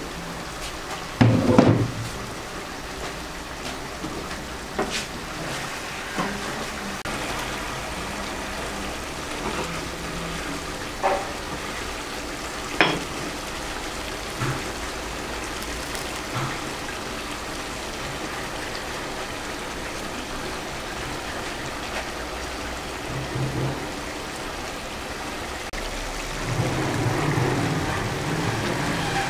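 Chicken thighs simmering in their broth in an open frying pan: a steady bubbling and sizzling. A few sharp knocks and clinks of cookware sit on top of it, the loudest about a second and a half in.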